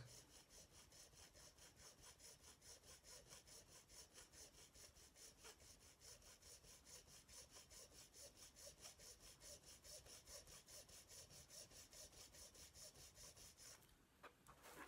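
Small hand file rasping back and forth on a metal lug of a model locomotive's chassis in quick, even strokes, about five a second, filing the lug down flat. The strokes are faint, and they stop shortly before the end.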